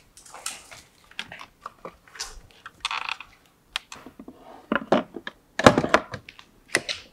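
Plastic housing of an Enel X JuiceBox EV charger clicking, scraping and knocking against its wall mounting bracket as its two back screws are worked into the bracket's hooks. The loudest knocks come about five to six seconds in.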